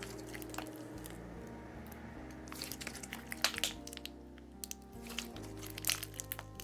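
Slime being worked by hand, giving scattered sharp clicks and crackles, over background music with slow sustained notes.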